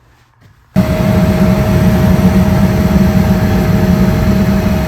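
Gas furnace starting up: a motor cuts in abruptly under a second in and runs steadily with a loud low hum and a thin steady whine over it.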